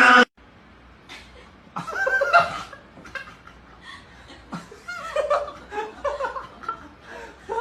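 Laughter in short bursts with pauses between, snickering and chuckling.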